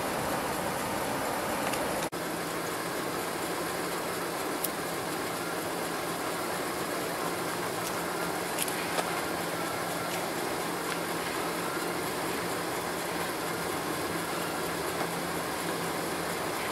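Slow-moving freight train: a steady rumble and hiss of wheels on rail with a low steady hum and a few faint clicks. The sound drops out for an instant about two seconds in.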